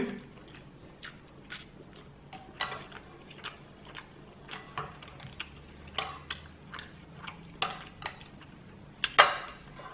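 A person chewing a mouthful of instant noodles, with irregular wet mouth clicks and smacks about one or two a second, and a louder one about nine seconds in.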